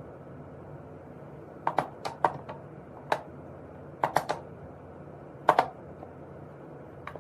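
A dozen or so sharp clicks or taps at irregular intervals, several in quick clusters of two or three, over a faint steady background noise.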